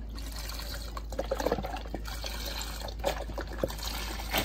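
Chicken broth pouring steadily from a carton into a stainless-steel pot of soup.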